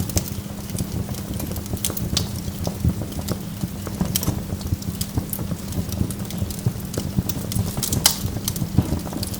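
Burning wood logs crackling: irregular sharp pops and snaps, several a second, over a steady low rumble.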